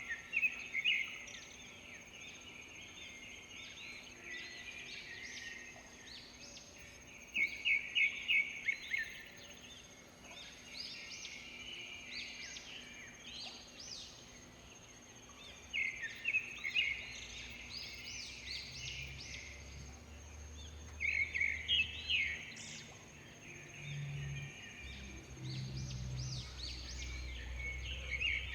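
Songbirds singing, in bursts of rapid chirping notes repeated every few seconds, over a thin steady high tone.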